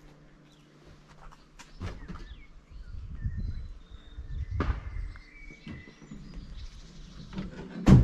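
Small woodland birds chirping, with low rumbling swells now and then and a sharp knock near the end, the loudest sound.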